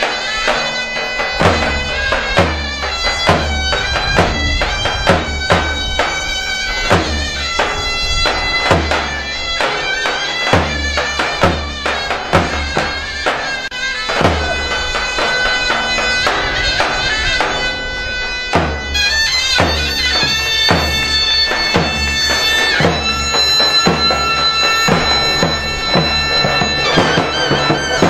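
Zeybek dance music: a shrill double-reed zurna holds a sustained, ornamented melody over heavy davul drum strokes.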